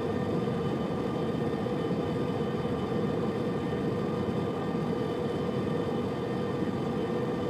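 Subaru Liberty's metal-on-metal grinding noise heard from inside the cabin over steady road noise, a steady hum-like drone at highway speed. It is tied to road speed: it comes on above 65 km/h and persists even coasting in neutral until the car slows to 60 km/h.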